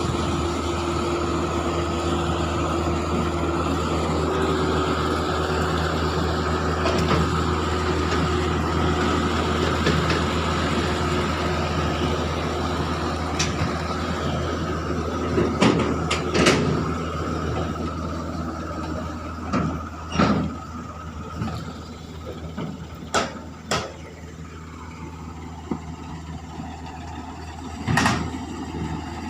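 Diesel engines of a mini excavator and a dump truck running steadily while the excavator pushes the truck through mud, with several sharp clanks in the second half. The engine sound eases and grows quieter about two-thirds of the way through.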